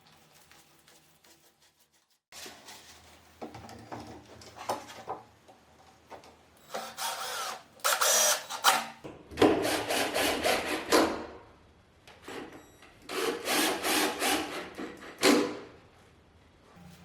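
Hand and power tools working wood in several separate spells of scraping and rubbing noise, each a second or two long, after a nearly quiet start.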